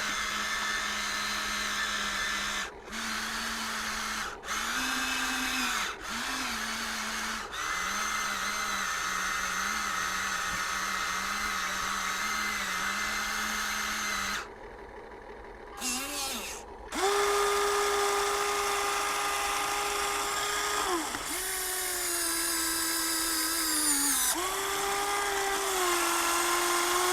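Small electric gear motors of a Huina 1593 RC toy excavator whining as its functions run one after another. The whine starts and stops several times and shifts pitch between runs. It gets louder and higher from about two-thirds of the way in.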